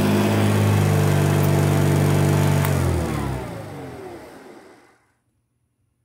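1972 Hoover Junior 1354A upright vacuum cleaner running on carpet, then switched off with a click a little under three seconds in; the motor and brush roll wind down with falling pitch and fade out within about two seconds.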